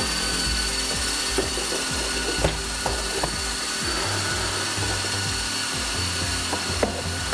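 Steady machine running in the shop, a dense hiss with a thin high whine that comes up just as it starts, with a few light clicks and knocks over it.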